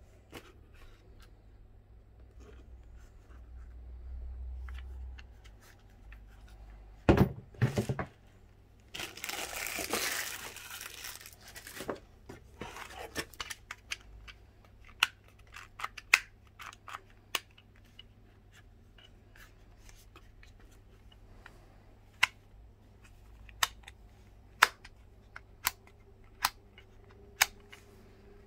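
Packaging being handled and torn open: a couple of loud knocks about seven seconds in, a few seconds of tearing, then scattered sharp clicks and taps.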